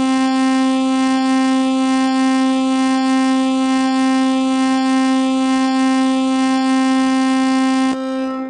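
Emergency alert alarm tone: one loud, steady buzzing note held on a single pitch, with a faint regular pulse running through it. It drops in level near the end before cutting off.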